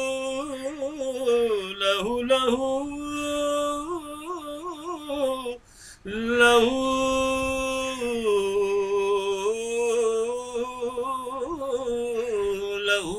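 A man singing a ghazal, drawing out long held notes with quick wavering ornaments between them, with a short break about five and a half seconds in before the line goes on.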